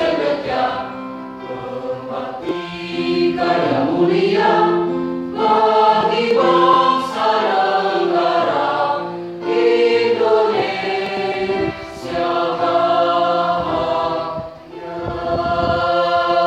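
Mixed choir of men's and women's voices singing together, held notes in phrases with short breaks between them.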